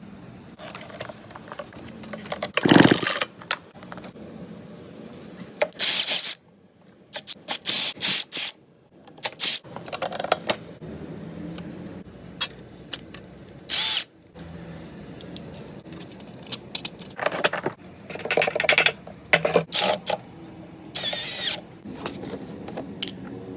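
Cordless power tools, a drill among them, triggered again and again in short bursts, the motor whirring up to speed and stopping each time.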